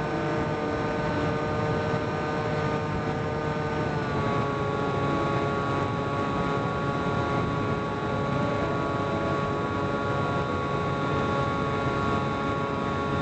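Electric motor and pusher propeller of a HobbyKing Bix3 RC plane whining steadily in flight, heard from onboard with wind rushing over the microphone. The pitch drops slightly about four seconds in, as the throttle is eased back, and then holds steady.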